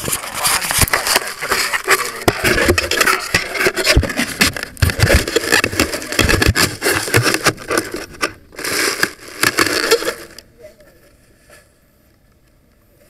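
Handling noise right at the microphone: a camera scraping, knocking and rustling against the inside of a weather balloon payload box. It stops about ten seconds in.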